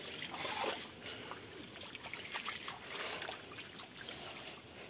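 Shallow stream trickling over a sandy bed, with irregular light splashes and scuffs of footsteps wading through the water.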